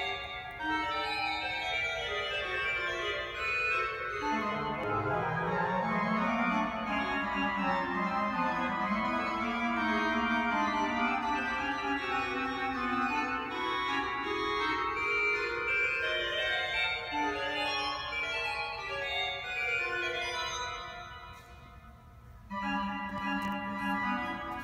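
Pipe organ playing loud, sustained chords with a moving bass line in a large, reverberant church. About 21 seconds in it drops to a quieter, thinner passage, then comes back in full near the end.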